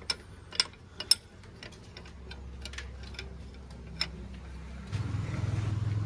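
Sharp metal clicks and clinks of a socket wrench on the combine harvester's brake caliper bolts as the caliper is unbolted and lifted off, a few strokes about half a second apart. A low engine hum comes in about five seconds in.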